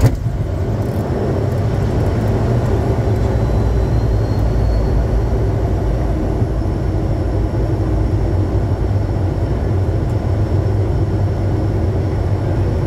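Steady noise of a Bombardier Challenger 350 business jet in flight, with airflow and engine noise heard from inside the aircraft during its approach. The noise is mostly low rumble, with faint steady high tones over it.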